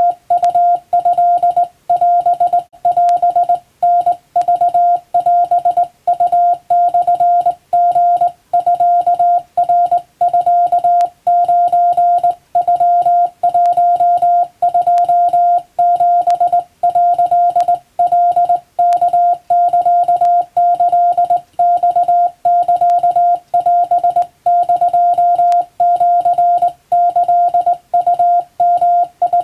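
Hand-keyed Japanese (wabun) Morse code: a steady mid-pitched beep switched on and off in dots and dashes, with brief breaks between characters.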